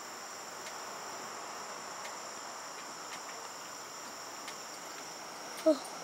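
Crickets chirring steadily as a high-pitched background drone, in two steady high tones. Near the end there is one short squeak that falls in pitch.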